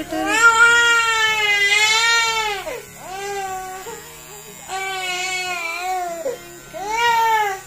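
Baby crying while her head is shaved with electric hair clippers: a long wail in the first two and a half seconds, then three shorter cries with short breaks between.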